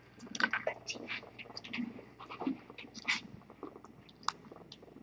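Kittens suckling on a nursing mother cat: faint, irregular wet smacks and clicks.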